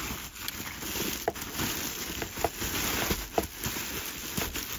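Bubble wrap rustling and crinkling as it is handled and pulled off a boxed item, with scattered sharp crackles.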